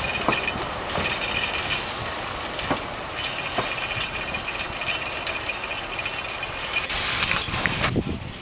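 Narrow-gauge passenger coaches rolling past close by, their wheels clattering and clicking over the track, with a high wheel squeal that fades away in the first couple of seconds.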